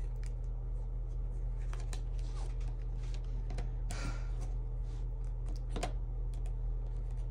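Scattered light clicks and taps from hands handling a card and touching a laptop on a desk, over a steady low hum.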